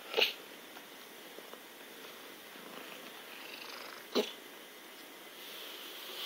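A domestic cat on catnip purring steadily, with two brief sharp noises, one right at the start and one about four seconds in.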